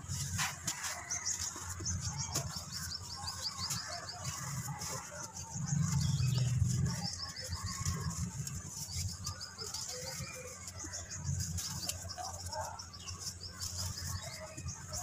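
Hands crushing and crumbling chunks of red dirt in a metal basin, a soft gritty crumbling, while small birds chirp rapidly and continuously in the background. A louder low rumble comes about six seconds in.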